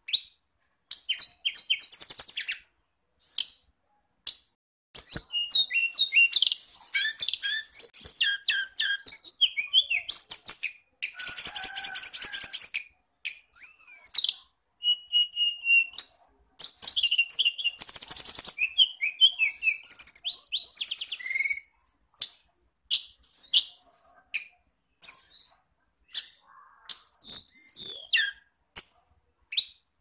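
A songbird singing a varied, high-pitched song of rapid chirps, trills and whistled notes in phrases broken by short pauses, with a dense buzzy trill near the middle.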